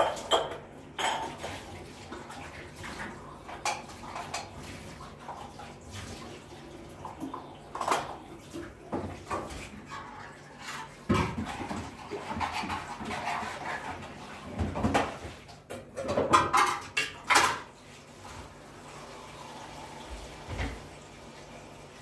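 Dishes and pots being handled at a kitchen counter: intermittent clinks and knocks of crockery and metal, with a cluster of louder clatters near the end.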